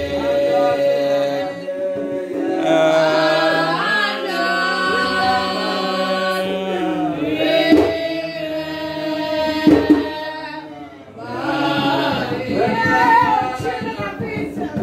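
Voices singing a slow hymn in long held notes, with two sharp percussion hits about two seconds apart near the middle.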